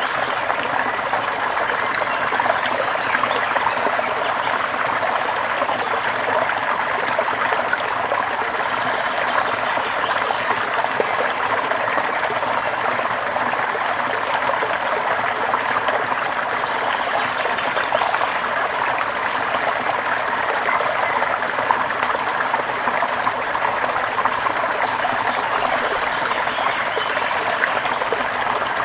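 Forest stream water flowing steadily, a continuous even sound with no breaks.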